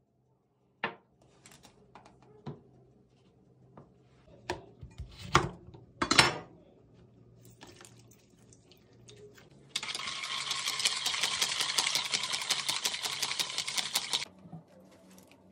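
A few scattered knocks and clinks of kitchen utensils, then about four seconds of a wire whisk beating an oily marinade in a plastic bowl: a fast, even rattle of many strokes a second.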